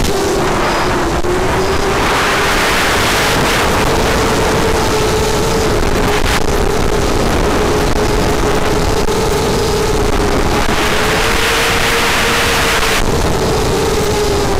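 FPV quadcopter's electric motors and propellers whining in flight, one steady tone wavering slightly in pitch, over heavy wind rush on the onboard camera's microphone.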